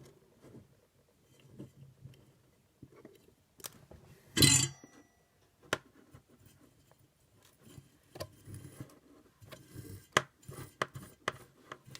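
Small clicks and knocks of tools and wire being handled on a desk, with one louder clatter about four and a half seconds in that rings briefly.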